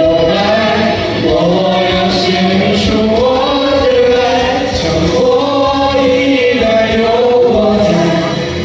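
Many voices singing together over music, in the manner of a choir.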